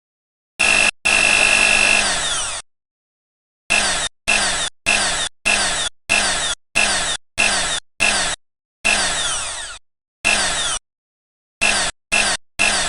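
A sampled kitchen blender motor, chopped into slices and played back as a beat: each piece starts abruptly and cuts off to dead silence. It begins with a longer run of a second and a half, then comes as a rapid series of short bursts about half a second apart, some falling in pitch like the motor spinning down.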